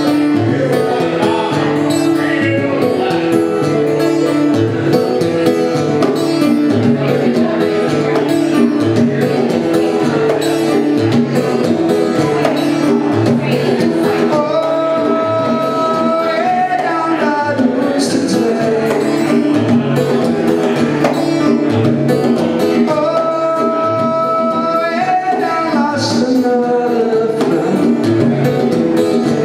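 Live reggae-rock song on acoustic guitar with hand-played bongos and a man singing; the voice holds a long note twice, about halfway through and again a few seconds before the end.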